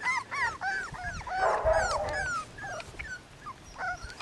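Daxipoo puppies yipping and whimpering: a quick run of short, high-pitched, arching cries, several a second.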